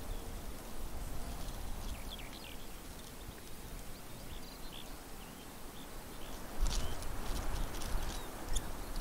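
Outdoor ambience: wind rumbling on the microphone, with a few short, faint bird chirps. About two-thirds of the way through a gust makes the rumble suddenly louder, with some rustling clicks.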